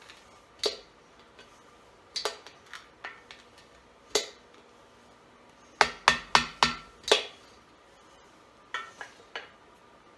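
Hammer blows on a screwdriver driven against a core (freeze) plug in a cast-iron small-block Chevy engine block, each strike ringing briefly in the metal. The blows come irregularly, with a quick run of about five about six seconds in and lighter taps near the end, as a stubborn plug is bent and worked loose.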